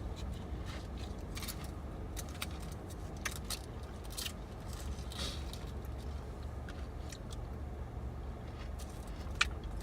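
Steady low rumble of a car interior, with scattered small clicks and rustles.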